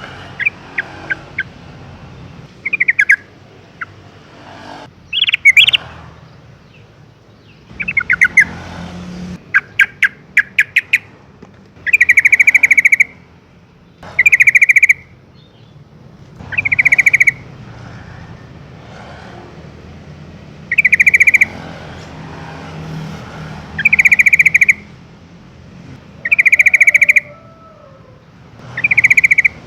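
Yellow-vented bulbul singing: quick runs of short chirping notes at first, then loud bubbling phrases repeated about every two to four seconds. A low steady hum runs underneath.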